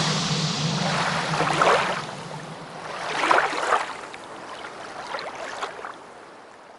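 Whoosh sound effects of an animated end card: three rushing noise swells, the loudest about three seconds in, while the low tail of the dance music fades out in the first two seconds.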